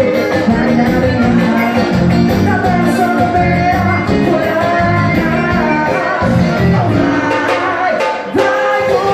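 Pisadinha forró music with singing.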